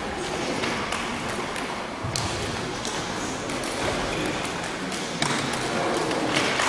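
Karate pair training in a large sports hall: irregular taps, slaps and thuds from strikes, blocks and footwork, over a constant wash of noise from the many people training.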